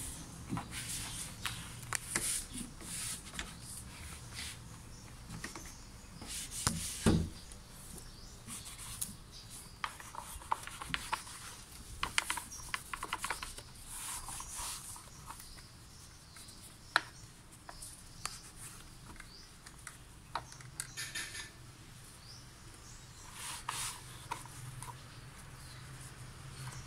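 A cloth wiping and rubbing over the plastic engine cover and ignition coils of a Honda engine bay, in uneven swishing strokes with scattered light clicks and taps, and one louder knock about a quarter of the way in.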